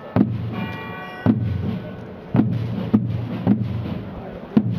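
Marching fanfare corps drums beating, with about six heavy drum strokes at an uneven pace over a steady low rumble of drumming. A short pitched horn note sounds about half a second in.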